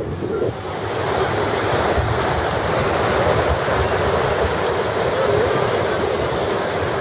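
Small surf waves washing up and hissing over a sandy shoreline, a steady wash, with some wind buffeting the microphone.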